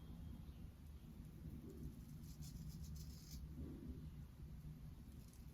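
Shavette's blade scraping through stubble in a run of short, faint strokes about two seconds in, over a low room hum.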